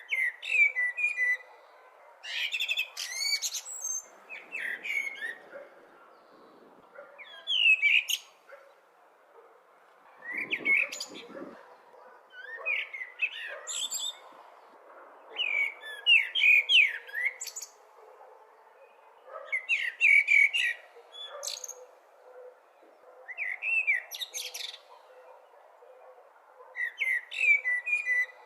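Blackbird singing: short separate song phrases every two to three seconds, each a warbled run followed by a high, thin twitter, over a faint steady background hiss.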